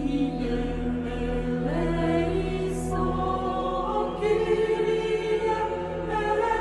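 A choir singing slow, sustained chant over a held low drone, moving to new notes a few times.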